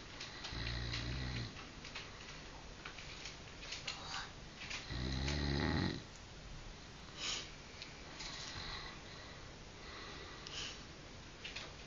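A man snoring in his sleep: two loud snores, each about a second long and some four seconds apart, with fainter breathing noises between.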